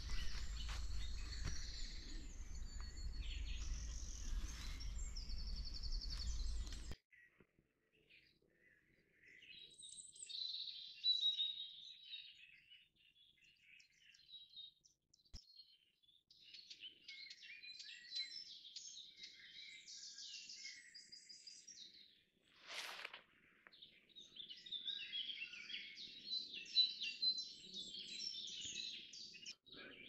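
Several woodland songbirds singing, with overlapping chirps, trills and calls coming and going. For the first seven seconds a loud low rumble lies under the song, then cuts off abruptly.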